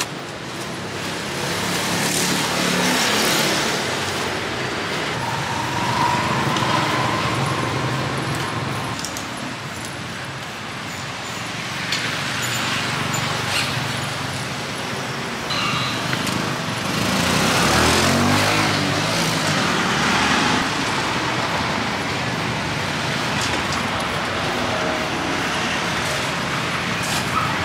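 Street traffic going by: a steady road noise that swells and fades several times as vehicles pass, loudest about two-thirds of the way through.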